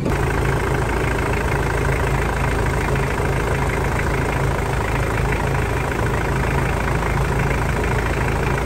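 Mitsubishi Pajero Fieldmaster engine idling steadily under the open hood with the air conditioning running, while the refrigerant charge is checked on the manifold gauges.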